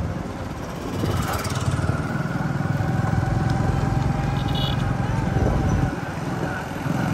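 Motorcycle running at a steady riding pace, with engine and road noise and a deep rumble of wind.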